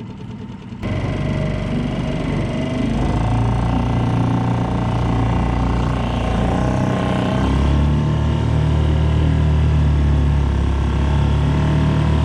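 Small 3.5 hp Mercury outboard motor running as the boat gets under way. It comes in suddenly about a second in and grows louder and fuller about halfway through.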